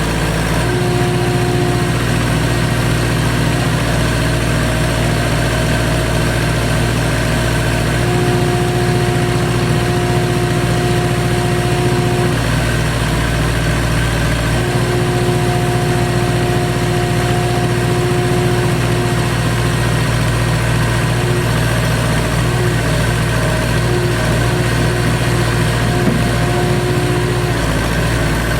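Case 580CK backhoe loader's engine running steadily, with a higher whining tone that comes and goes several times.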